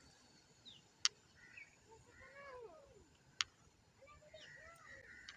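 A cat meowing several times in short rising-and-falling calls, with two sharp clicks about a second in and again past the three-second mark.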